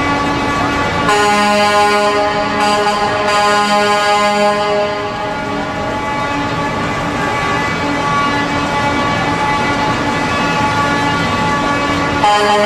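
Semi-truck air horns sounding long blasts of several notes together: one comes in about a second in and holds for about four seconds, weaker tones carry on after it, and another loud blast starts near the end.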